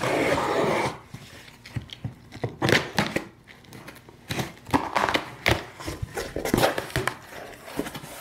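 A scissor blade slitting packing tape along a cardboard box's seam: a loud tearing rasp for the first second, then a run of short crinkles, taps and scrapes of tape and cardboard as the flaps are worked open.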